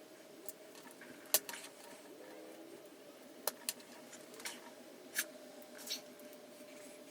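Small plastic and metal kit parts of an RC car's gearbox clicking and tapping as they are handled and fitted together on a bench. There is a sharp click about a second in and a handful of lighter clicks later, over a faint steady hum.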